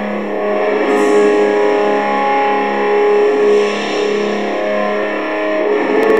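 Black metal music: distorted electric guitar playing held notes that change every second or two over a steady low drone.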